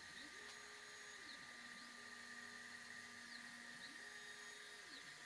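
Stepper motors of a diode laser engraver's gantry moving the laser head through an outline preview: a faint whine that rises in pitch as each move speeds up, holds, then falls as it slows, several moves in a row. A steady faint high whine runs beneath.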